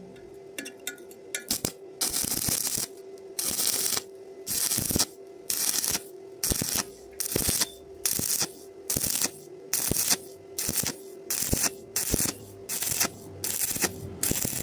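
Stick-welding arc crackling in short, evenly repeated bursts of about half a second, with short pauses between them: the arc is struck and broken again and again to bridge a gap between the iron pieces. A few faint clicks come before the first burst.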